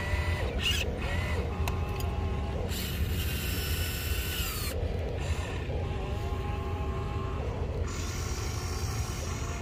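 Electric gear motors of a radio-controlled toy excavator whining in short runs as the boom, bucket and turntable move, each run a second or two long, starting and stopping several times, with slight rises and falls in pitch.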